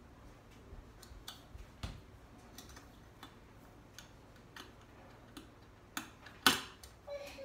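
Light clicks and taps of a metal air-fryer rotisserie skewer set as its end piece is worked onto the skewers through a pork loin, with one louder clack near the end.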